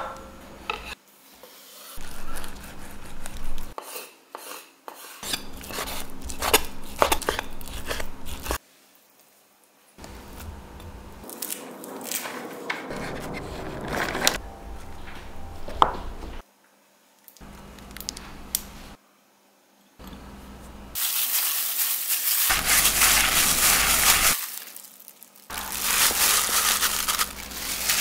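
Food being prepared in a glass mixing bowl: handling and mixing sounds with small clinks and rubbing, in short separate takes divided by brief silences, with a louder, rustling stretch of mixing near the end.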